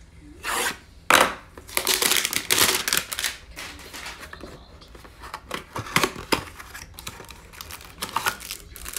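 Cardboard trading-card hanger box being slit open and its silver foil inner wrapper pulled out and torn, with crinkling and tearing. The rustling is densest in the first few seconds, then thins to scattered crackles.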